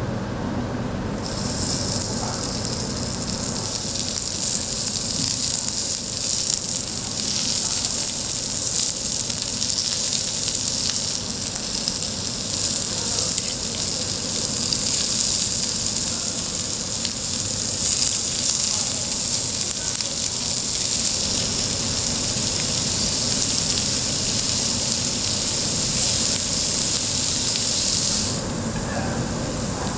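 Food sizzling on a hot cast-iron cauldron-lid griddle: a steady, high-pitched hiss that starts about a second in and stops abruptly near the end.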